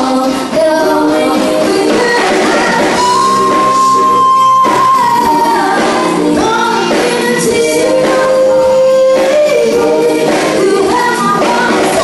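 Live band performing a song: female voices singing over electric guitar and bass, with long held high notes.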